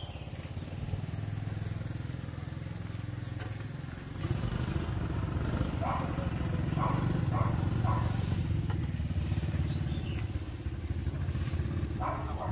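A small engine running steadily, louder from about four seconds in, over a steady high-pitched insect drone.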